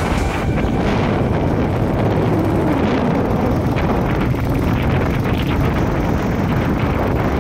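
Motorcycle riding at road speed: the engine running under steady wind rushing over the on-board microphone.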